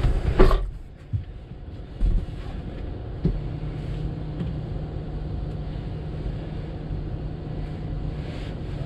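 Stationary car idling, heard from inside the cabin, with a sharp thump about half a second in. A steady low hum joins about three seconds in.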